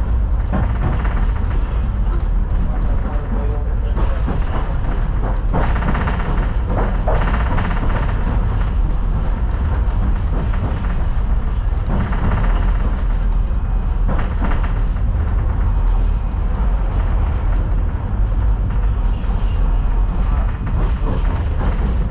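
Inside a moving Vityaz-M low-floor tram: a steady low rumble of the wheels and running gear on the rails, with a few brief louder noises from the track now and then.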